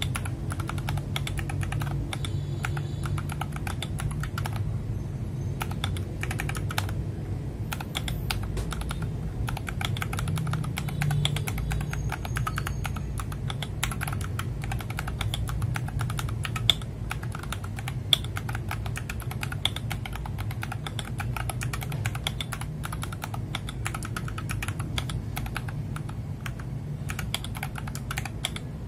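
Typing on an FL Esports MK870 mechanical keyboard with Cherry-profile PBT keycaps: a fast, continuous run of solid key clacks, with a few sharper strikes a little past the middle.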